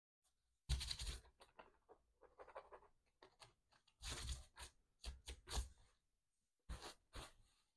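Scuffing and rustling from a football boot being laced up, then the studded boot shifting and stepping on artificial turf. It comes in several short bursts with soft thumps.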